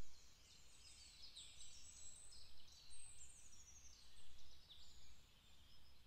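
Several woodland songbirds singing at once: a chorus of quick, overlapping high chirps, trills and short whistled sweeps, over a faint low rumble.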